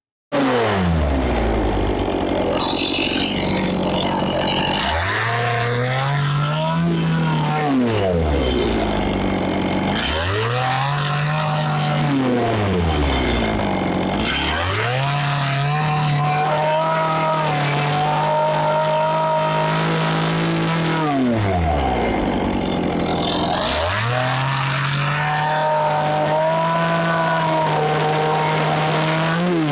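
Chainsaw revving up to full throttle, holding there for a few seconds and dropping back, four times over, as it cuts into the wood block.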